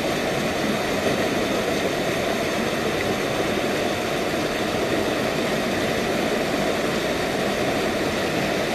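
Steady rush of river water pouring over and between rocks, an even noise that does not let up.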